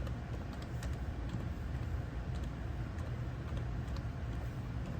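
Computer keyboard keys tapped one at a time, scattered faint clicks as a journal name is typed into a search box, over a steady low hum.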